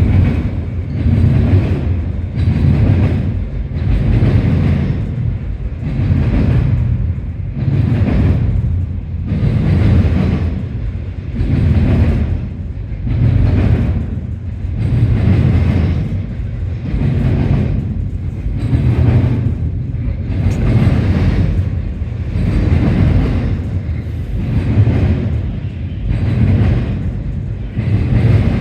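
A CSX intermodal freight train of well cars rolling past. Its wheels make a steady low rumble that swells and fades about every two seconds as each car goes by.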